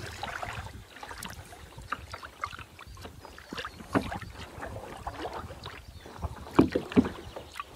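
Kayak paddle strokes: the blades of a double-bladed paddle dipping and pulling through calm water, with splashes and drips, the loudest strokes near the end, over a low rumble of wind on the microphone.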